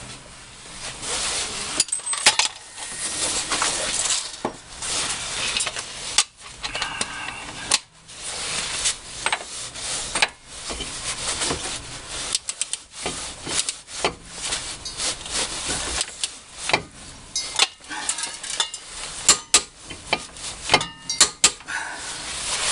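Steel hand tools clinking and clattering, with irregular clicks and knocks and some scraping, while the front axle nut on a Dana 30 hub is tightened with a torque wrench. The sharpest knocks come late.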